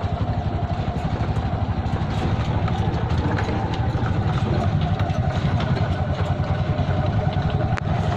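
An engine running steadily at a constant speed with a fast, even pulse, a few light clicks over it and one sharp click near the end.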